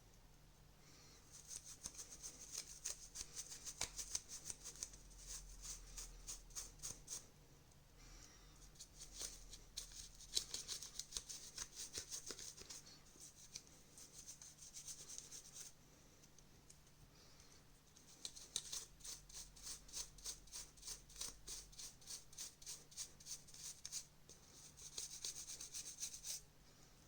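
Rapid back-and-forth scrubbing on a dirty plastic part of a disassembled TV remote, in three bouts with short pauses between them.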